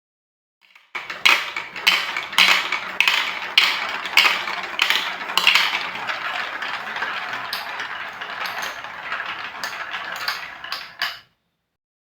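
Marbles rolling along a plastic Lego Duplo block track, starting about a second in. Sharp clacks come about every half second at first, then a steady rolling rattle, ending in a few quick clicks and a sudden stop.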